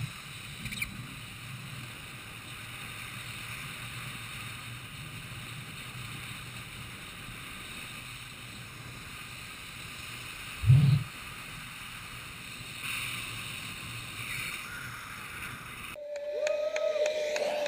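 Steady rush of wind on an onboard camera microphone and skate wheels on asphalt during a high-speed inline downhill run, with one heavy low buffeting thump about eleven seconds in. Near the end the sound changes abruptly to a quieter scene with a gliding tone.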